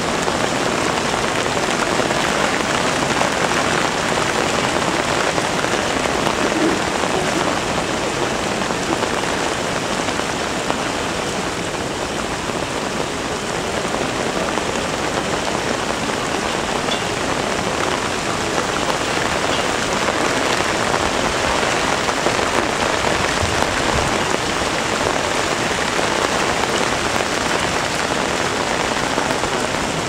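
Heavy typhoon rain falling steadily, an even hiss.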